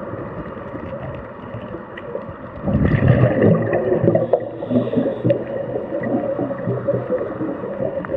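Scuba diver's exhaled air bubbling out of the regulator underwater: a loud gurgling rush starting a little under three seconds in, then easing off.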